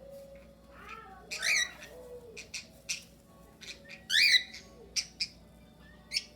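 Mixed flock of cockatiels and budgerigars calling. There are two loud, shrill calls about one and a half and four seconds in, quick sharp chirps between them, and softer warbling chatter early on.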